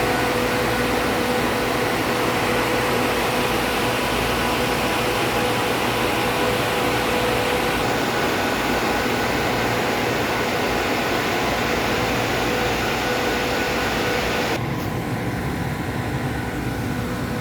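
Air-cooled chiller running: a steady machine hum with several held tones under a wide rush of condenser-fan air. About fifteen seconds in the hissy upper part of the noise drops away while the hum carries on.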